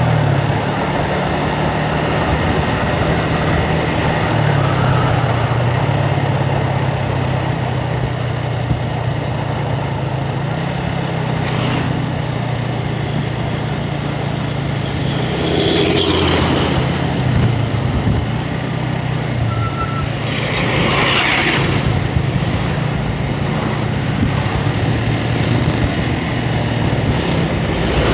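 Yamaha Vixion's 150 cc single-cylinder engine running steadily while riding, under a steady rush of road and wind noise; the rider calls the engine rough. Two brief louder rushing swells come in around the middle.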